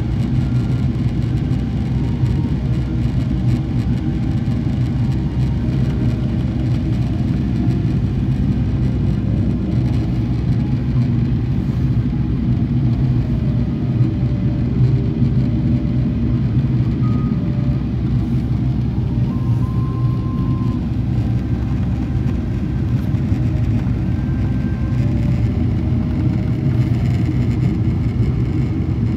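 Steady low drone inside the cabin of a Boeing 777-300ER airliner in flight: engine and airflow noise.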